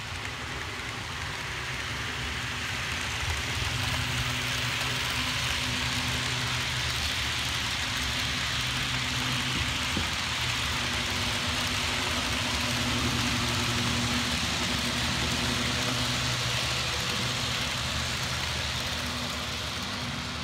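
Model freight train led by a diesel locomotive running along the track, a steady rushing rattle of wheels on rails with a low engine-like hum. It grows louder over the first few seconds as the train comes close and stays loud while the cars pass.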